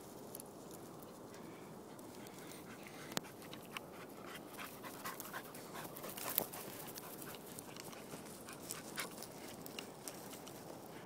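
A dog panting, with scattered crackles of dry grass and twigs underfoot.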